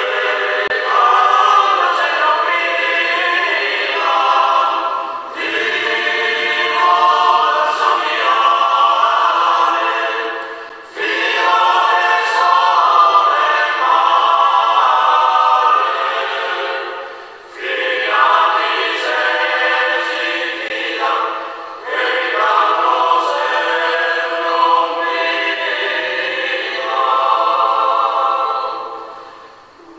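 Men's choir singing a cappella in sustained phrases, with brief pauses between them. It is played back through a screen's speaker and re-recorded, so it sounds thin, with the bass missing.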